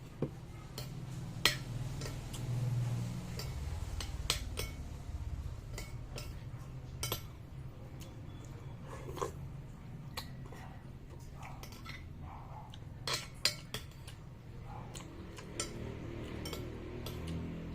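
Spoon and cutlery clinking and tapping against a bowl while eating noodle soup: scattered light clinks, a few louder ones, over a steady low rumble.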